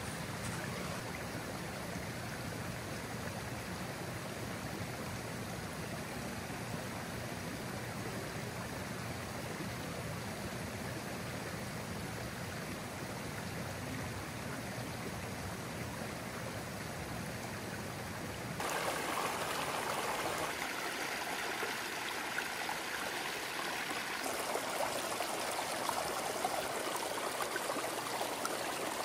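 Small forest creek running, a steady rush and trickle of water. About two-thirds of the way in it turns louder and brighter, as if heard from close by.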